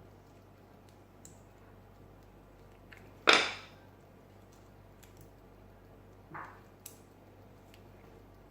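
Small metal clicks from handling a pin-tumbler lock cylinder and tools, with one sharp metallic clatter about three seconds in that rings briefly, and a softer knock about three seconds later.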